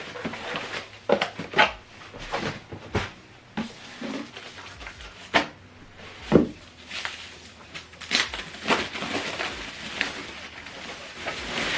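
Unboxed soundbar, subwoofer and their packaging being handled: irregular crinkling and rustling with scattered sharp knocks, the loudest about six seconds in.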